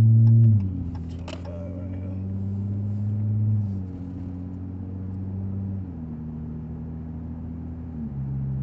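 Car exhaust drone heard from inside the cabin: a steady low engine note that drops in pitch in steps about four times, loudest right at the start.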